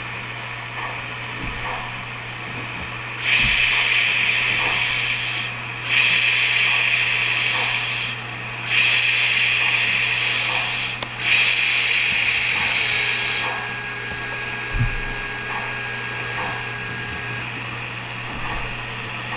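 The sound system of an MTH HO-scale PRR 2-8-2 Light Mikado locomotive (Proto-Sound 3.0) playing its standing sounds through the model's small speaker. Under a steady hum and a faint regular ticking, there are four loud bursts of steam hiss, each about two seconds long, one after another a few seconds in.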